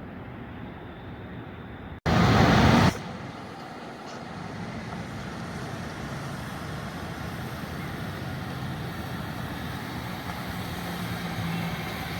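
Diesel freight train rumbling steadily, growing slightly louder toward the end. About two seconds in, the sound cuts out and is followed by a loud rush of noise lasting about a second.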